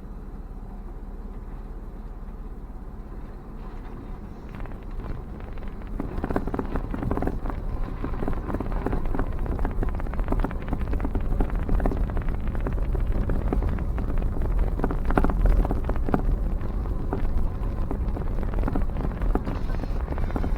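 Car moving slowly, a steady low rumble that grows louder about six seconds in, with irregular crackling over it.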